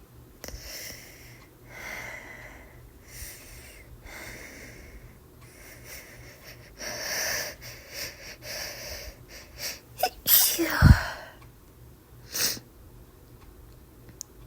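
A woman with a cold sneezes. First comes a hitching build-up of repeated catching, breathy inhales over several seconds. The sneeze breaks about ten seconds in, and a short sharp breath follows a moment later.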